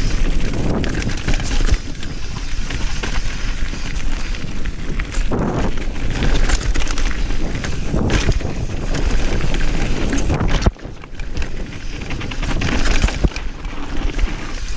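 Downhill mountain bike speeding down a rough dirt trail: wind rushing over the camera microphone, tyres on dirt and rock, and the bike rattling and knocking over bumps. The noise dips briefly about ten seconds in.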